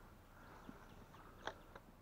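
Near silence: faint outdoor background with a few soft clicks, the loudest about one and a half seconds in.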